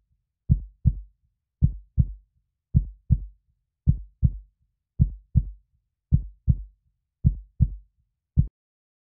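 Heartbeat sound effect: pairs of low thumps in a lub-dub pattern, about one pair a second, with dead silence between them. The last beat comes shortly before the end.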